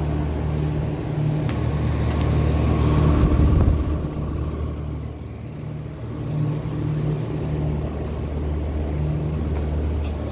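Trane outdoor air-conditioning unit starting up: a low mechanical hum that swells about three to four seconds in, then settles into a steady run.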